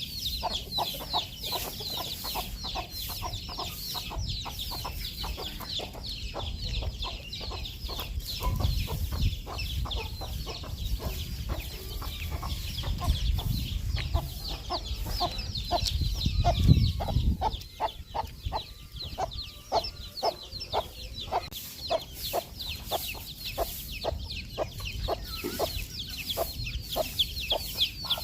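A brood of baby chicks peeping non-stop in quick, high, falling chirps, over a mother hen's low, repeated clucks. A low rumble comes and goes through the middle.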